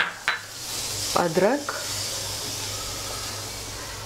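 Semolina and vegetables sizzling steadily in oil in a hot steel kadhai during upma cooking, with two sharp clicks near the start.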